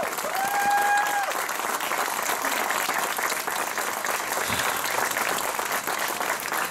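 Crowd applauding, a dense steady patter of many hands clapping. Two short steady high tones sound over it in the first second or so.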